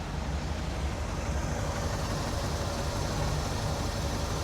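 1976 Cadillac Eldorado's 500 cubic-inch V8 idling steadily with fresh oil, sounding nice and quiet with no abnormal noises.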